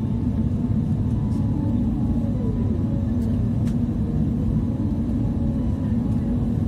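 Steady low rumble of an airliner's engines and rushing air heard inside the passenger cabin on descent, with a faint hum and a short falling tone about two seconds in.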